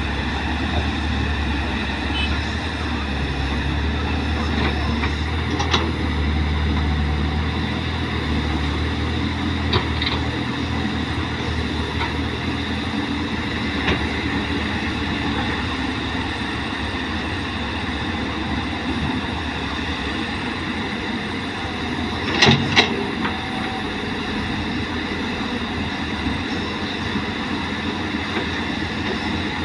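Caterpillar excavator's diesel engine running steadily, heavier and lower in the first several seconds, with occasional metallic clanks from the machine at work; the loudest is a sharp double clank about two-thirds of the way through.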